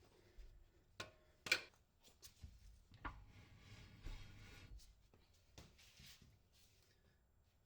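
Faint, scattered clicks and knocks of hand tools and metal parts being handled, the sharpest about a second and a half in, with a quiet scraping, rustling stretch from about three to five seconds in.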